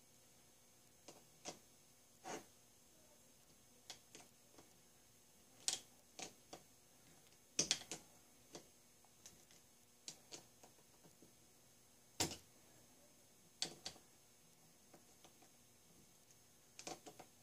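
Small screwdriver working the cylinder-head screws of a Stuart Sirius model steam engine: scattered light metallic clicks and taps at an irregular pace, a few sharper than the rest.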